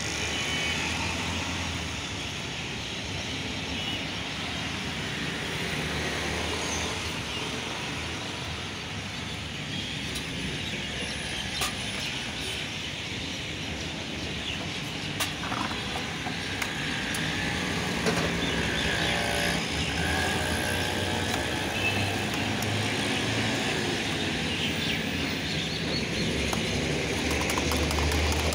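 Steady street noise with traffic going by, and a few sharp clinks now and then.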